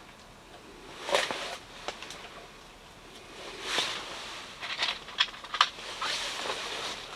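Handling sounds of a sharpened steel blade being fitted back onto a hand ice auger's cutting head: several short scrapes and a few light clicks of metal against metal.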